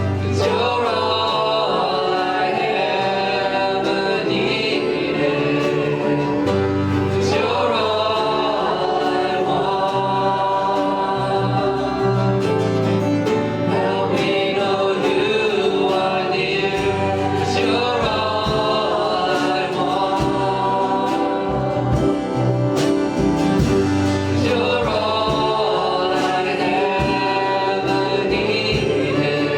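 Congregational worship music: voices singing a praise song together over a live band with bass, guitar and drums.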